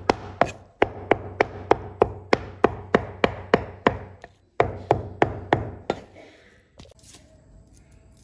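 Cleaver chopping raw pork into mince on a wooden cutting board: fast, even chops about three a second, with a short pause just past four seconds. The chopping stops about six seconds in.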